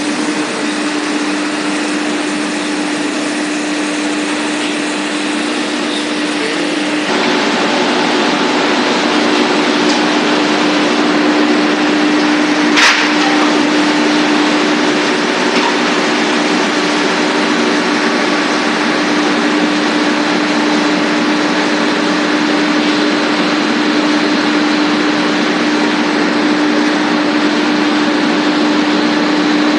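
Sawdust wood pellet line machinery running: a loud, steady mechanical noise with a constant hum. The noise changes abruptly about seven seconds in, and there is one sharp click about thirteen seconds in.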